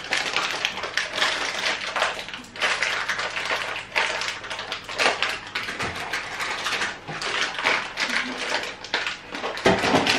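Cardboard cake-mix box being torn open and the inner pouch of sponge mix crinkling and rustling as it is pulled out and struggled with, a dense run of irregular crackles and rips.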